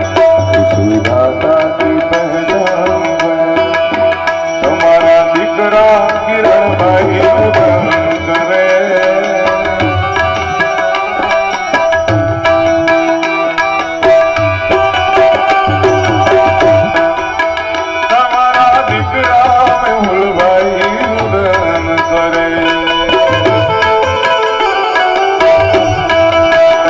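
An instrumental passage of live Indian devotional folk music: tabla playing a steady rhythm under sustained harmonium notes and a second keyed melody instrument.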